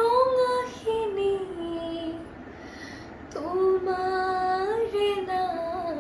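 A girl singing unaccompanied, holding long, sliding notes. One phrase trails off about two seconds in, and after a short pause for breath the next phrase begins.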